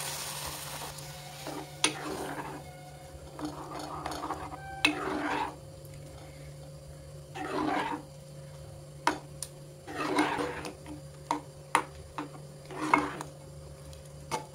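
Milk poured into a hot pan, sizzling briefly, then a ladle stirring and scraping around the pan, with sharp clicks where it knocks against the pan.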